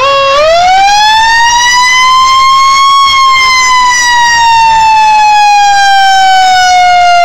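Fire truck siren wailing loudly and close by: one long rise in pitch over about three seconds, then a slow fall.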